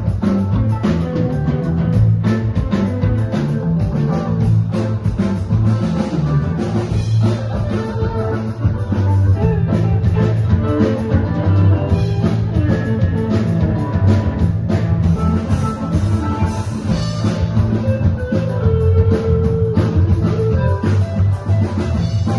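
Live rock band playing: guitar over a drum kit, at a steady loud level.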